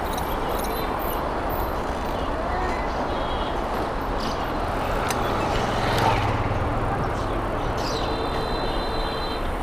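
Road traffic noise on a busy street, heard from a moving bicycle, with a motor vehicle passing about six seconds in.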